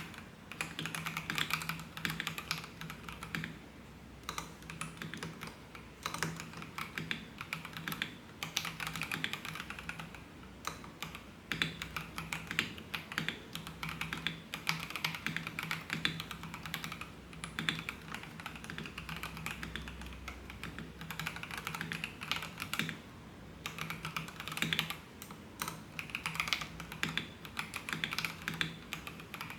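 Typing on an FL Esports FL750 mechanical keyboard: quick runs of key clacks lasting a few seconds each, broken by short pauses.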